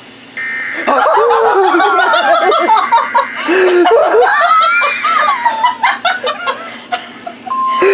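A short burst of Emergency Alert System digital header tones about half a second in, then people laughing hard for about six seconds. Near the end a steady single-pitch NOAA Weather Radio alert tone starts, announcing another warning.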